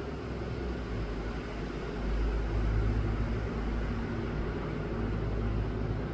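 Steady low rumble with a faint hiss above it, swelling about two seconds in.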